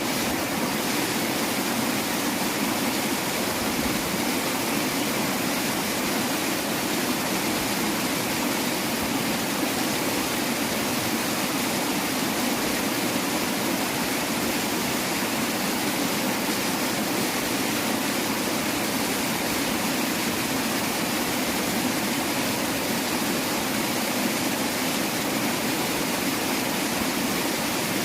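Steady rush of river water flowing, an even noise with no breaks or separate events.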